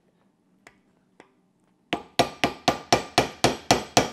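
Hammer striking the steel universal joint of a drive shaft held in a bench vise: two faint taps, then from about two seconds in a rapid run of sharp metallic blows, about four a second. The blows are meant to jar loose a seized, broken circlip in the joint's bearing cup so that it will turn.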